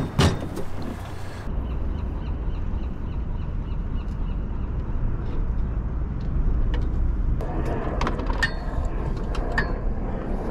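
Low rumble of wind on the microphone, with scattered sharp metal clicks and knocks from the stainless steel self-steering gear frame being worked loose. The knocks come mostly in the last few seconds.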